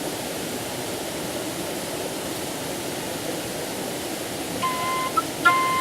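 Steady rushing of falling water, like a waterfall. About four and a half seconds in, a wind instrument begins playing short held notes.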